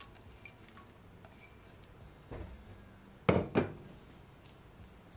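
Dishware clinking against a glass baking dish: a faint knock a little after two seconds in, then two sharp clinks about a third of a second apart.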